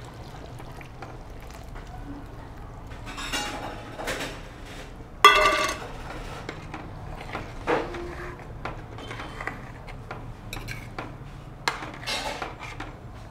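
Metal spoon and vessels clinking and scraping against a cooking pot as thick coconut milk is added to a chicken curry and stirred in, with scattered clinks and one loud ringing clank about five seconds in.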